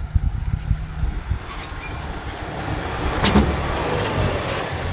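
Ford Raptor pickup truck's engine running at low speed with tyre noise as it pushes a small electric car along the road, getting loudest as they pass about three seconds in.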